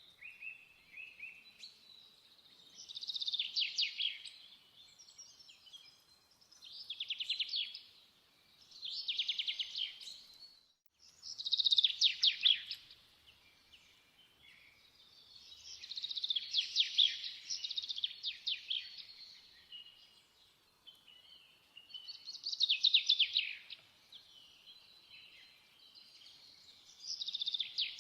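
Birdsong: a songbird repeating short phrases of rapid high trilling notes every few seconds, with a faint steady background between phrases.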